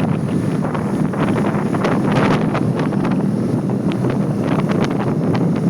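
Heavy wind buffeting on the microphone of a camera on a moving motorcycle, a loud rough rush with gusty crackle. It cuts off suddenly at the end.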